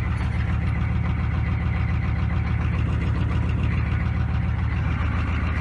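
GM 6.5 L turbo-diesel V8 idling steadily just after a cold start, still cold and letting off a little smoke.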